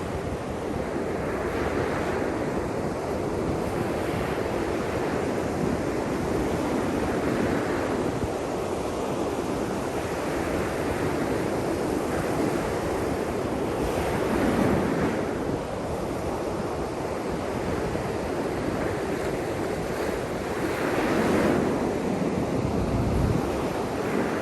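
Waves washing in with a steady rush, swelling around the middle and again near the end, with wind buffeting the microphone.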